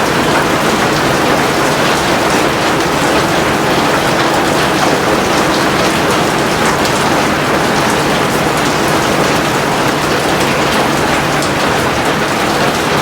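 Heavy rain falling steadily, a dense even hiss with many individual drop ticks on top.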